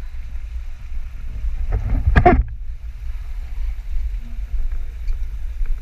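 Indoor swimming-pool hall ambience: a steady low rumble, with a brief loud sound about two seconds in.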